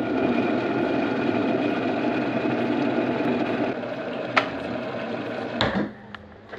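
Electric kettle heating water: a steady hissing rush that eases off after about four seconds. A sharp click follows, then a short rush near the end as a fridge door is pulled open.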